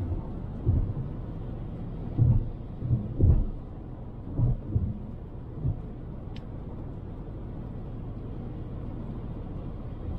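Toyota RAV4 driving through snow: a steady low rumble of road and wind noise, with several irregular dull thumps during the first six seconds and one short high tick a little after six seconds in.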